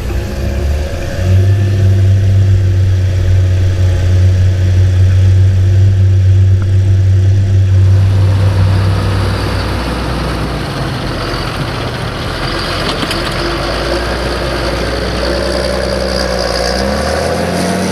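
John Deere 7720's 6.8-litre PowerTech six-cylinder diesel running steadily under plowing load, with a strong low drone. About eight to ten seconds in, the low drone weakens and a broader rushing engine sound takes over.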